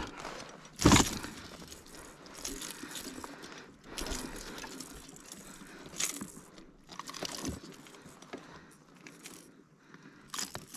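Irregular knocks, clicks and rattles of fishing tackle being handled, the loudest knock about a second in.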